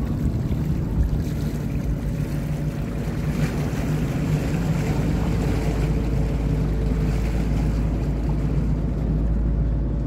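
Small river ferry's engine running steadily as the boat crosses, with wind rumbling on the microphone.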